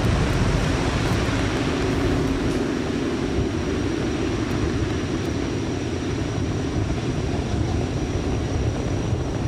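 Falcon 9 first stage's nine Merlin 1D engines at full thrust during ascent: a steady, dense rumble that eases off slightly as the rocket climbs away.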